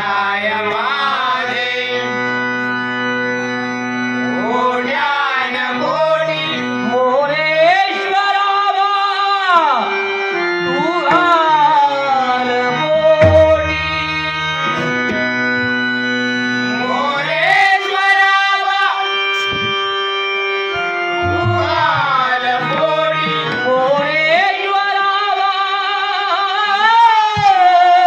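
Male bhajan singer singing a Marathi devotional prayer in a high voice, the melody bending and held over sustained harmonium notes, with a hand drum keeping time.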